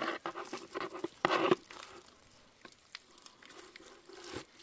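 Small live fish flapping and pattering in a plastic bucket as they are shaken out of a mesh net bag, with scattered small clicks and rustling of the net and a louder rustle about a second in.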